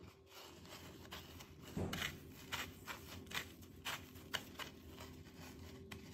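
Dry breadcrumbs crunching and rustling under the fingers as they are pressed onto an egg-coated piece of chicken: a run of short, uneven crackles from about two seconds in, over a faint steady hum.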